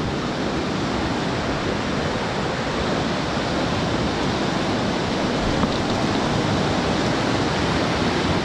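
Steady, loud rushing of a fast-flowing mountain stream.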